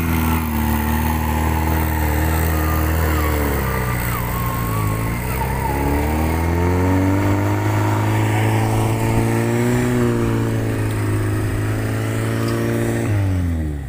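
Off-road Suzuki 4x4's engine revving under load as it crawls through a muddy rut. The pitch dips, climbs and falls again with the throttle, then drops away abruptly near the end.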